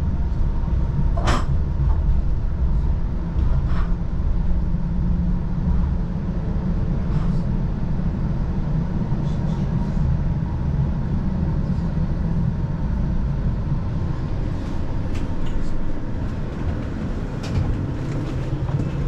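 Tram at a street-level stop: a steady low rumble with a faint even hum and a few light clicks.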